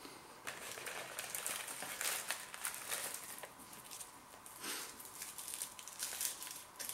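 Crispy seaweed thins crackling and crinkling as they are handled, in quiet irregular clusters of dry crackles.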